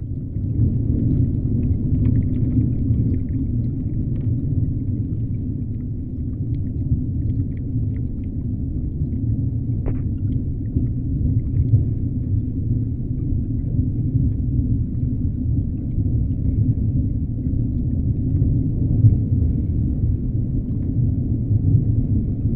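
Underwater ambience: a steady low rumble, with a few faint ticks and one sharp click about ten seconds in.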